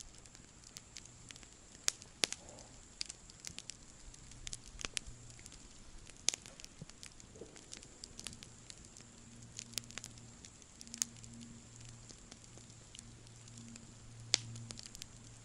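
Campfire crackling: irregular sharp pops and snaps of burning wood, some louder than others.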